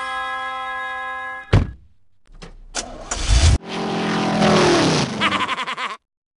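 A car engine starts and the vehicle pulls away, its pitch falling as it goes. Before that comes a long steady pitched tone, cut off by a sharp thump about a second and a half in.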